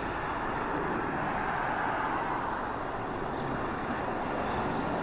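Jet engine noise from an Airbus A350's Rolls-Royce Trent XWB turbofans as the airliner banks through a steep climb, a steady broad rush that slowly grows a little louder.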